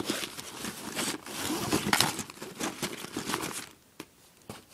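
Rustling and crinkling of a nylon bag and the items in it being handled and packed into a pocket, with small clicks and scrapes; it stops about three and a half seconds in.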